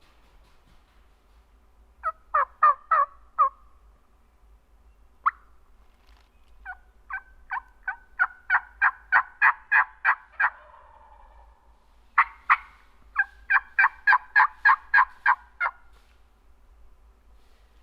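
Wild turkey yelping: three runs of short, evenly spaced yelps, about four a second, the middle run long and building in level.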